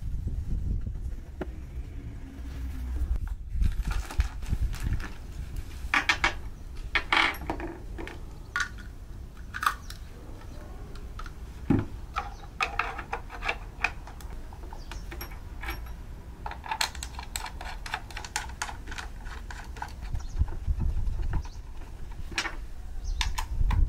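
Screws and hard plastic parts being handled and fitted: scattered sharp clicks, light metallic clinks and knocks, coming in small clusters.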